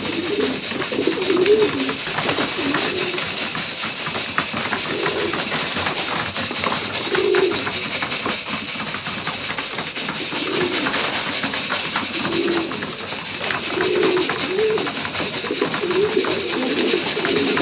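Loft pigeons cooing, one warbling coo after another throughout, over a steady hiss.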